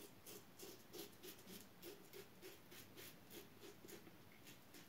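Faint, quick strokes of a plastic-handled double-edge safety razor with a Mühle blade scraping stubble through shaving lather, about three to four short strokes a second.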